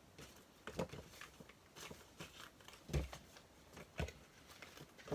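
Hands rummaging among small items in a container: scattered light clicks and knocks, about one a second, with faint rustling.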